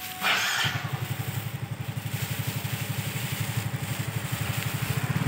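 A brief rustle of a plastic bag, then a motorcycle engine running with a fast, even pulsing beat that grows louder toward the end.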